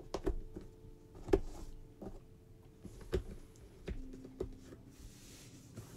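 Cardboard jigsaw puzzle pieces being handled and pressed into place on a wooden tabletop: a handful of light, irregular clicks and taps, the loudest about a second and a half in.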